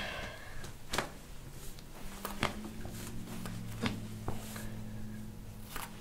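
A few sharp cracks about a second and a half apart as the chiropractor presses on the upper back during the adjustment, over a low steady hum that starts about two seconds in.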